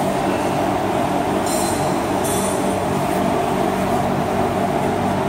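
A steady, loud mechanical drone, with two brief scuffing rustles about one and a half and two and a half seconds in as a body slides along a concrete floor.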